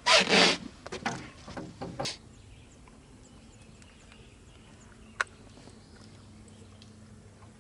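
Brief loud scuffling handling noise, followed by a few short knocks and, later, one sharp click, over a faint steady low hum.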